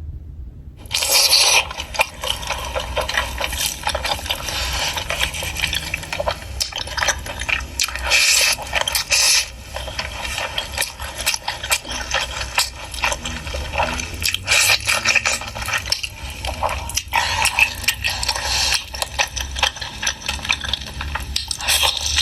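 Close-miked mukbang eating of fatty pork ribs: loud, wet chewing and lip-smacking, a dense run of crackly clicks that starts about a second in and goes on without a break.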